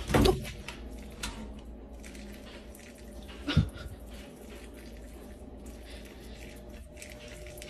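A pet's short vocal cries, twice, about three and a half seconds apart, over a steady low background hiss.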